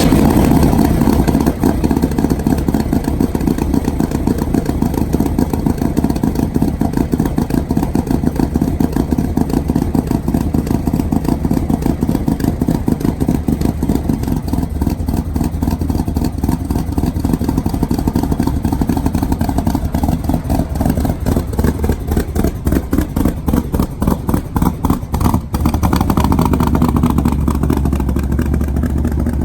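Truck engine running loudly with a rapid, pulsing exhaust beat as the truck makes its first drive, the revs changing over the last few seconds.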